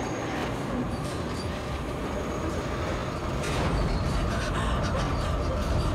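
Dense, deep rumbling drone of horror-film sound design, with faint thin tones over it, swelling louder about three and a half seconds in.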